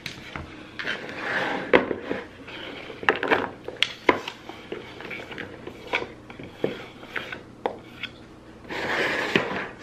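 Diced cucumber being scraped and slid off a bamboo cutting board into a bowl: a run of light knocks and clatters against the wood, with scraping sounds about a second in and again near the end.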